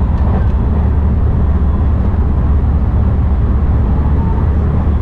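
Running noise of a JR West rapid train at speed, heard from inside the carriage: a steady low rumble.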